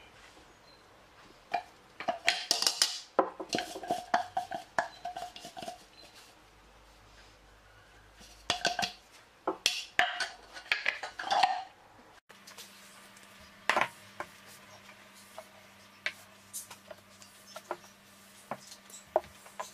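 Kitchenware clattering: quick clinks and knocks, some with a short metallic ring, in two bursts. After a cut, only faint scattered clicks remain over a low steady hum.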